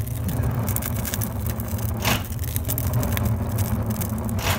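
Sawdust-fed rocket heater burning with a steady low rumble, with a short rattling rush about every two and a half seconds from the Arduino-timed shaker, an oscillating multi-tool that vibrates the fuel grate to keep the sawdust flowing.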